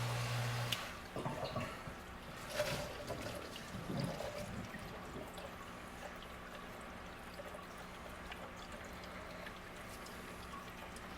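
Aquarium canister filter running, its return water trickling and splashing into the tank. A steady low hum cuts off just under a second in, and a fainter steady hum runs from about five seconds on.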